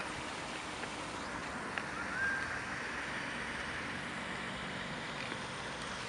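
Steady rush of splashing water from the Captain Arthur Phillip memorial fountain. A brief rising whistle sounds about two seconds in.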